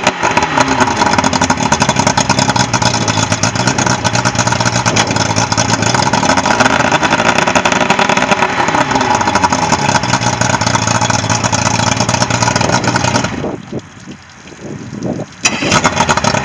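Yamaha 115 hp outboard motor running, its pitch rising and falling slightly with engine speed. Near the end the sound drops sharply for about two seconds, then comes back at full level.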